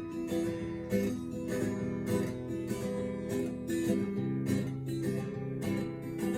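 Acoustic guitar strumming chords in a steady rhythm, about two strokes a second, with no singing.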